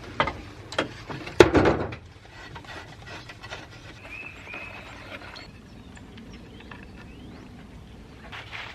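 A few sharp knocks and clatters of tools and parts being handled on a workbench, the loudest about one and a half seconds in, followed by faint rubbing and handling noises.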